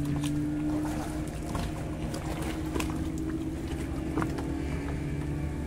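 A boat engine running steadily with a low, even hum, with faint crunching footsteps on gravel.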